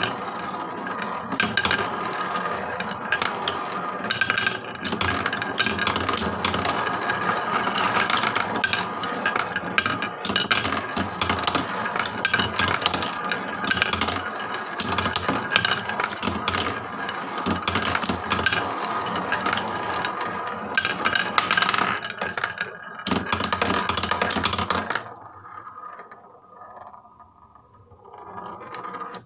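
Many marbles rolling and clattering down a HABA wooden marble run: a dense stream of clicks and knocks that thins out about 25 seconds in to a few faint last rolls.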